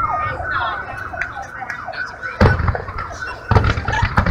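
Fireworks display: a run of short high whistles, each gliding down in pitch, then deep booms of shells bursting, one about two and a half seconds in and several more near the end.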